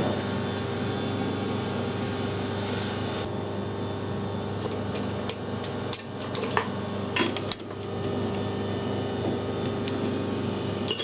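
Metal lathe's steady machine hum after the cut has stopped, with a few light metal clinks and knocks about five to seven and a half seconds in and again near the end as the chuck and tooling are handled.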